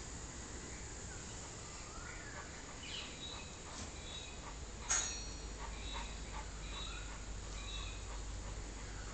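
Mini piglet giving short, high, squeaky grunts as it trots about and noses at its food tray, with one sharp click about five seconds in.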